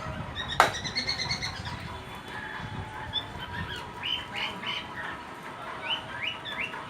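Small birds chirping and calling in short, repeated high notes, some falling in pitch. A single sharp click sounds about half a second in.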